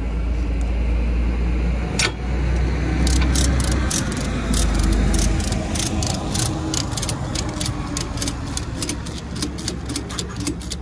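Heavy goods vehicle's diesel engine rumbling close by and then fading as a loaded articulated lorry pulls past and away. From about three seconds in, a ratchet strap being worked to tighten a load gives a long run of quick, sharp metallic clicks.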